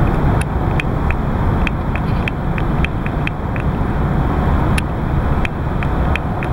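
Car running along a road, heard from inside the cabin as a steady low rumble, with a scattering of irregular sharp ticks on top.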